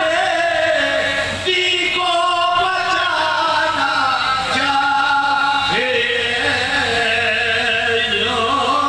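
Group of men chanting a marsiya, a mournful Urdu elegy sung without instruments, in long held notes that waver and glide in pitch.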